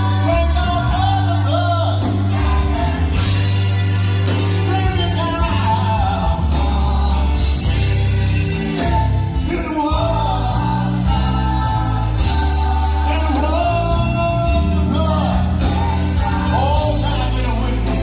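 Live gospel music: a church choir singing over band accompaniment, with a strong bass line running underneath.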